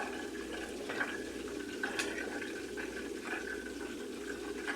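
Chicken frying in hot oil: a steady sizzle with scattered crackles and a few sharp pops.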